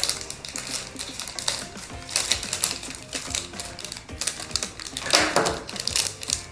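Crinkling and tearing of a doll's plastic packaging bag being ripped open by hand: dense, irregular crackles, over background music.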